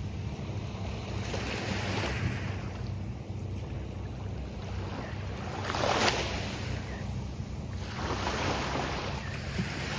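Gulf of Mexico surf breaking and washing up the beach in repeated swells, the loudest crash about six seconds in. Wind on the microphone adds a steady low rumble.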